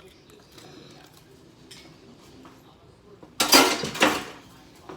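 Dishes and utensils clattering loudly for about a second, a little past halfway through, after a few seconds of faint small kitchen sounds.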